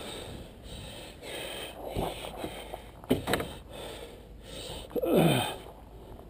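A man's heavy breathing, with a loud grunt falling in pitch about five seconds in, and a couple of sharp knocks around two and three seconds in.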